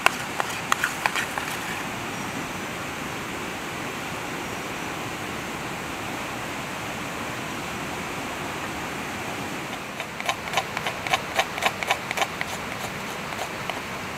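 Steady rushing of a flowing river. A few sharp clicks come right at the start, and a quick run of sharp clicks and knocks comes about ten seconds in.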